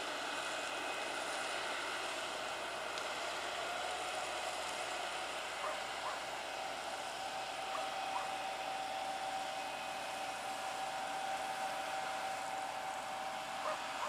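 Case IH CVX175 tractor working under load as it pulls a six-furrow reversible plough uphill, a steady machine noise with a steady whine that comes in about four seconds in.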